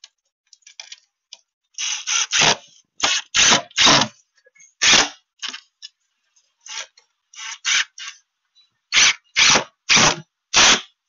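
Hand-tool work on a piece of wooden trim: about fifteen loud, short strokes in irregular runs roughly half a second apart, with faint ticks and clicks between.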